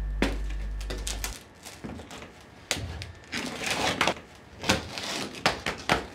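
The band's last held low note fades out in the first second or so, then scattered knocks and taps on wood follow, coming closer together toward the end.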